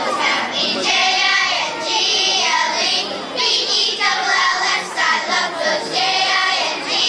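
A crowd singing together, with children's voices to the fore and notes held in long sung phrases.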